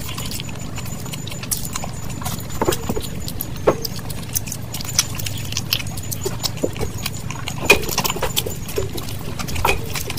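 Close-miked wet chewing and lip-smacking from a person eating saucy fried rice and curried chicken by hand: a steady run of irregular sticky clicks and squelches, a few of them sharper.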